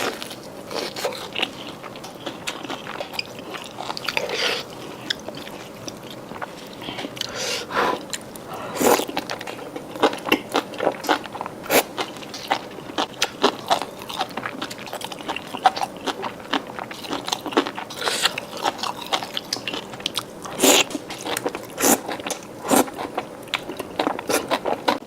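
Close-miked biting and chewing of a crispy fried chicken cutlet: a long run of irregular crunches, a few of them sharper and louder than the rest.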